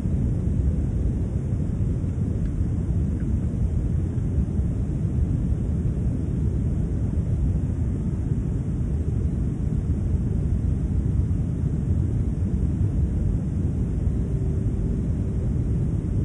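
Steady, loud low rumbling noise, with a faint steady tone joining in near the end.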